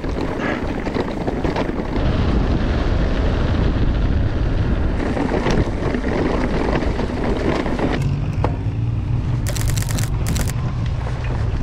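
Rushing wind on a mountain-bike action camera's microphone, with scattered clicks and rattles. About eight seconds in it gives way to a steadier low drone.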